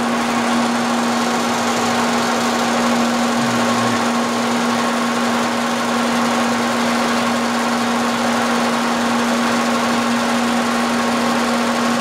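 Vertical milling machine running with a steady hum and a fainter high whine, the table feeding the end mill off the end of a shaft before a keyway cut. The tone holds at one level throughout.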